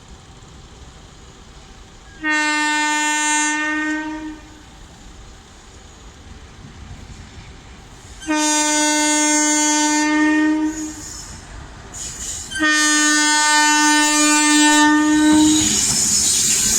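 Indian Railways locomotive horn sounding three long blasts, each a steady single note held for two to three seconds with a few seconds between them. A goods train's running noise swells in near the end as it reaches the crossing.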